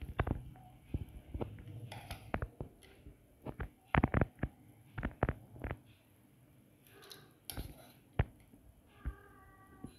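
A spoon clinking and knocking against a bowl of jhal muri as it is mixed: irregular strikes, loudest in a cluster about four seconds in.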